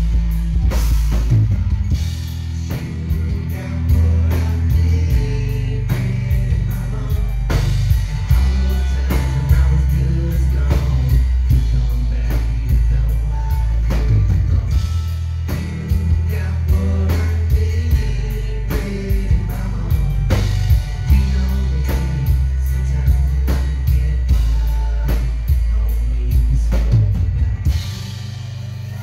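Live band playing a song: two voices singing over acoustic guitar, drum kit and heavy bass, with a steady drum beat. The music drops off near the end.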